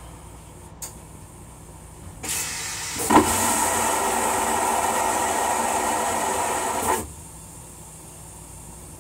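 Stainless-steel toilet on a Metro-North Comet II rail coach flushing. After a small click, a soft hiss starts about two seconds in, then a loud rushing flush sets in sharply about three seconds in, runs steadily for about four seconds and cuts off suddenly.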